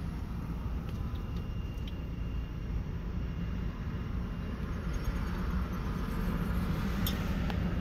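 Steady low rumble of a moving car heard from inside the cabin: engine and tyre noise, with one light click near the end.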